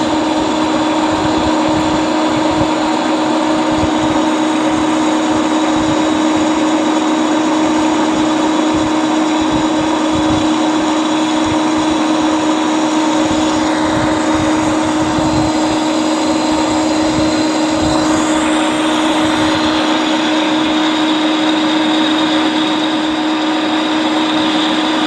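Centre lathe running at speed, its motor and headstock gearing giving a steady hum with several steady tones, while the tool is fed slowly by hand across the workpiece for a light finishing cut on a taper.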